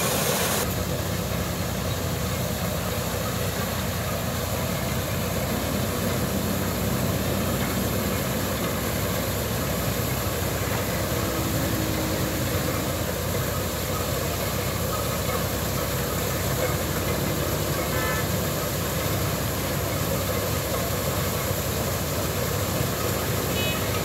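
Tractor-driven maize sheller running steadily: a continuous engine drone mixed with the mechanical noise of cobs being shelled and grain pouring out.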